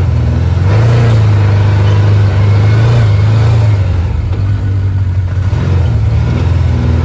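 UTV (side-by-side) engine running under way, heard close up from the vehicle. The engine note rises about a second in, drops back around four seconds and picks up again near the end.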